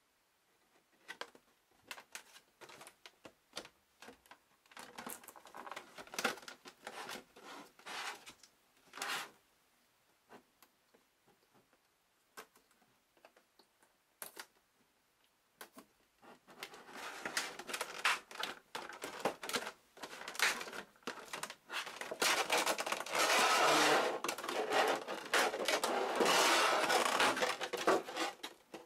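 Thin clear plastic blister packaging being handled: scattered clicks and taps at first, then from about halfway a dense, louder crinkling as the tray is flexed and pulled open.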